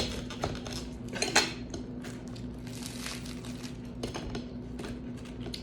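A table knife cutting rye bread on a plate: scraping strokes and light clinks of cutlery against the dish, over a steady low hum.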